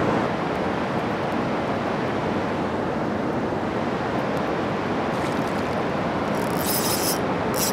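Steady rushing noise of wind and river water, with a few short, high hisses near the end.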